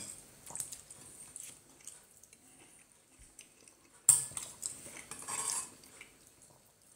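Metal spoon clinking and scraping against a ceramic bowl while scooping food. Faint clicks come first, then a sudden louder stretch of scraping about four seconds in that lasts roughly two seconds.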